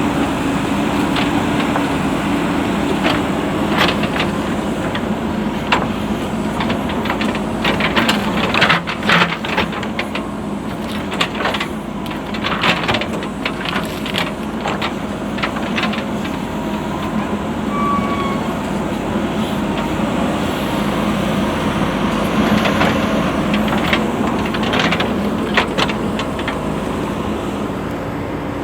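JCB 3DX backhoe loader's diesel engine running steadily under working load, with bursts of sharp knocks and cracks from the machine at work, clustered in the middle and again near the end.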